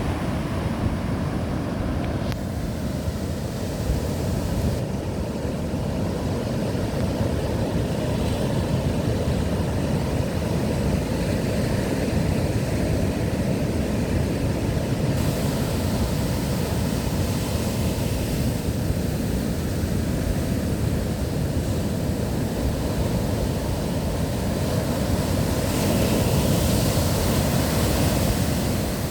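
Big Atlantic waves surging and breaking under strong wind, with wind rumbling on the microphone. A louder hissing wash comes near the end.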